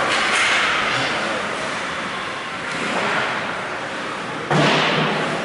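Ice hockey game sounds in an indoor rink: a steady noisy wash of skating and play on the ice, with a sudden loud hit about four and a half seconds in.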